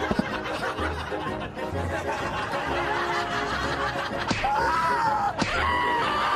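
Canned studio laugh track, a mix of chuckles and snickers, over light comedic background music with a steady beat.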